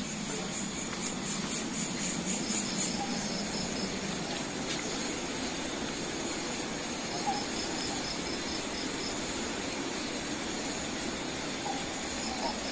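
Night insects, crickets, chirping in a fast regular pulse of about four chirps a second, over a steady hiss of background noise.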